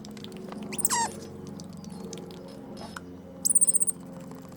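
Capuchin monkey calling: one high squeak that falls steeply in pitch about a second in, then a quick trill of high chirps near the end.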